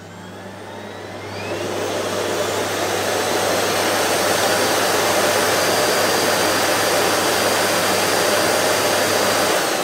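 Miele bagged cylinder vacuum cleaner switched on: its motor spins up with a rising whine over the first couple of seconds, then runs loud and steady with an airy rush a bit like air conditioning, and is switched off and begins to wind down near the end.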